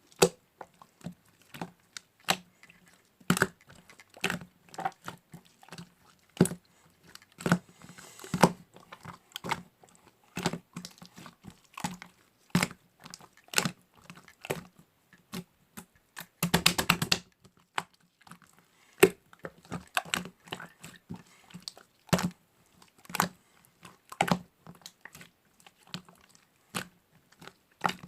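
Slime being squeezed and poked by hand, making irregular sharp clicks and pops, with a quick run of rapid clicks a little past halfway.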